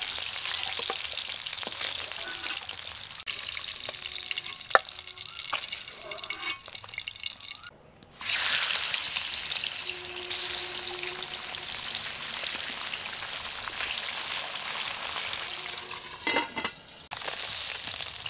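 Hot mustard oil sizzling in a kadai as the fried magur (walking catfish) pieces are lifted out, with a few sharp knocks of the spatula against the pan. The sizzle drops away briefly near the middle and comes back louder.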